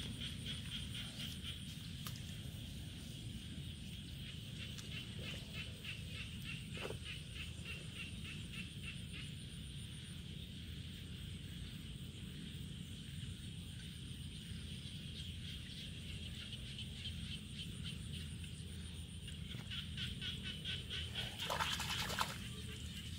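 Outdoor ambience: a steady low rumble with a rapid, high, pulsing chirr throughout. Near the end come a few seconds of splashing and squelching as hands dig into muddy paddy water.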